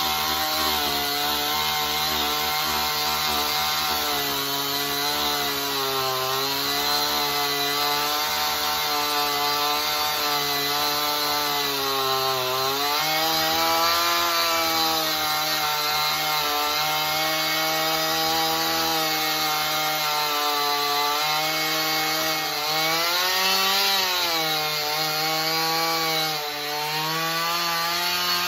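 Stihl MS 271 two-stroke chainsaw running at high revs as it cuts into a wooden log. The engine pitch sags and recovers several times as the bar bites into the wood, most clearly about twelve seconds in and again a little after twenty seconds.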